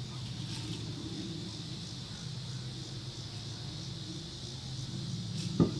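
Steady low engine hum, with a steady high insect drone above it and a single sharp knock near the end.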